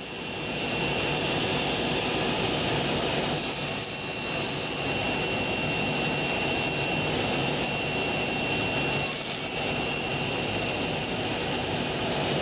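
Table saw motor spinning up and then running steadily with a high whine. A second, higher whine comes in about three seconds in, and the sound dips briefly near nine seconds.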